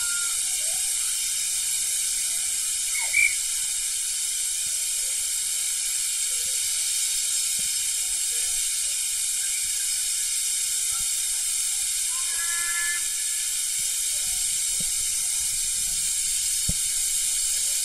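Steady hiss of escaping steam from the steam locomotive standing at the platform, with brief high squeaks about three seconds in and again past the middle, and a single click near the end.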